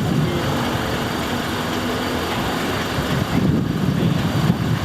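Vehicle engines running steadily amid outdoor traffic noise, a continuous low rumble.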